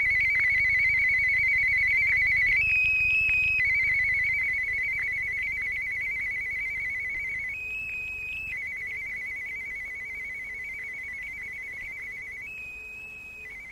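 Electronic warbling tone: a rapid trill held at one pitch, switching about every five seconds to a steadier, slightly higher tone for about a second. It fades slowly.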